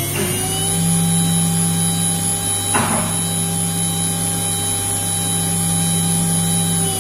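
1.5 kW water-cooled CNC spindle motor running at its full speed of about 24,000 rpm, a steady whine whose pitch settles just after the start. A brief burst of noise comes about three seconds in.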